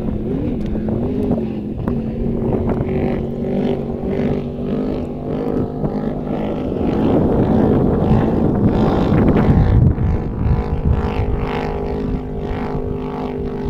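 Motorboat engine running with a steady drone, its pitch wavering at first and then holding steady. A louder rushing noise swells in the middle and drops away about ten seconds in.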